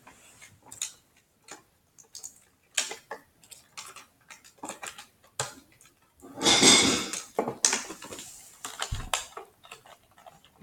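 Light, scattered clicks and taps of small objects being handled, with one louder rustling burst about six and a half seconds in.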